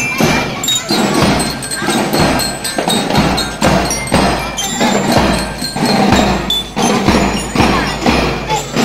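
School drum and lyre band marching: bell lyres ringing out a tune over a steady beat of snare and bass drums.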